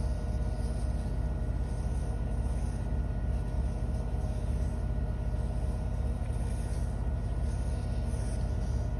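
Washing machine on its spin cycle, a steady low rumble with a faint steady whine above it.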